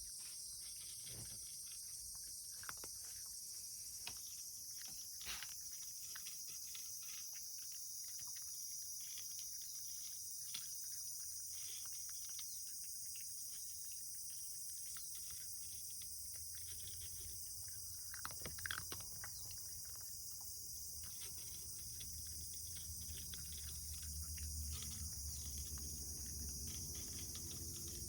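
A cat eating from a plate: faint, irregular small clicks of chewing and licking, with a brief louder cluster about two-thirds through, over a steady high-pitched hiss.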